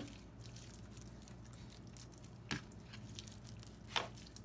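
A hand rubbing wet marinade and chopped garlic into raw pork loin: faint squishing, with three short clicks, at the start, about two and a half seconds in and near the end.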